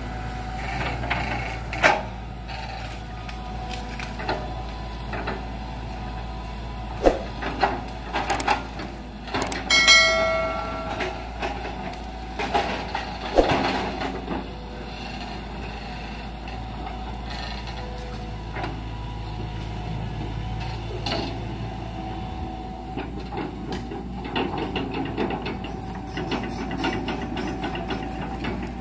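Hitachi crawler excavator's diesel engine running steadily as it pushes over rubber trees, with sharp cracks and knocks from the bucket and breaking wood, loudest about two seconds in, from seven to ten seconds, and again around thirteen seconds. A short squeal sounds about ten seconds in.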